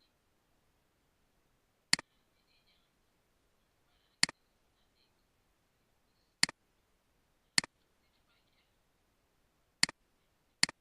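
Six sharp computer mouse clicks, irregularly spaced one to two seconds apart, each a crisp press followed at once by a softer release, with faint light ticking in between.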